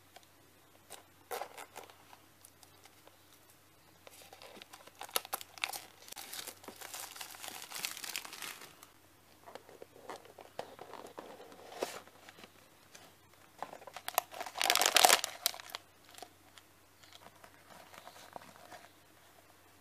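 Cellophane wrapping and a cardboard toy box being handled and opened: on-and-off crinkling and tearing of plastic film, with paper rustling. The loudest burst comes about three-quarters of the way through.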